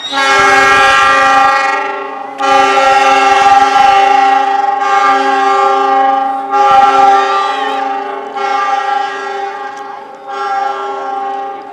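Indonesian train's multi-tone air horn sounding a long blast of several tones together, the Semboyan 35 horn signal. It is held for over ten seconds, swelling and dipping in about six pulses, and stops near the end.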